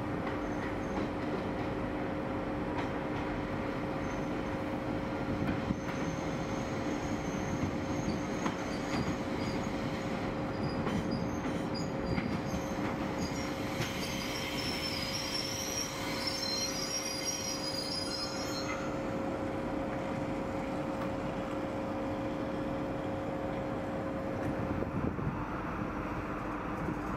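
Train moving through a station, with a steady rumble and hum. From about eight seconds in until about eighteen seconds in, its wheels squeal on the rails in high, wavering tones.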